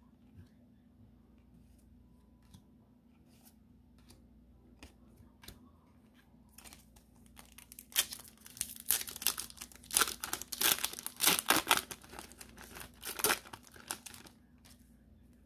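Foil Pokémon 151 booster pack being torn open and crinkled: faint light ticks of handling at first, then dense loud crackling and ripping of the foil wrapper from about seven seconds in, stopping just before the end.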